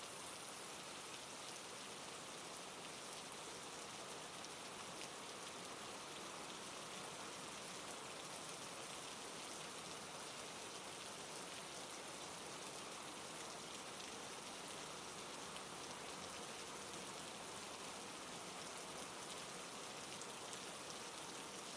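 Steady, soft rain falling on a surface, a continuous even patter with faint scattered drop ticks.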